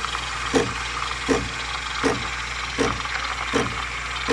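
Espresso machine running while it steams milk in the jug under its steam wand: a steady hiss over a hum, with a regular pulse about every three-quarters of a second, cutting off just at the end.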